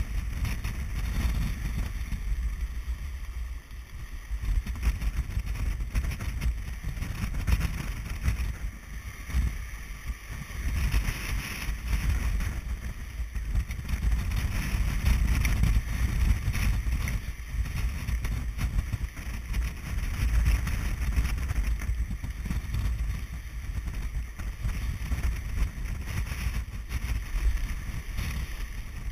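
Strong wind buffeting the microphone aboard an Elan 333 sailing yacht beating to windward, coming in uneven gusts. A hiss of rushing water swells and fades under it.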